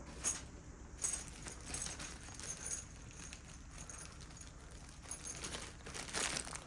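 Small metal parts lightly clinking and rustling as someone sorts through them by hand, searching for a thin headset spacer; a few louder clicks about a second in and near the end.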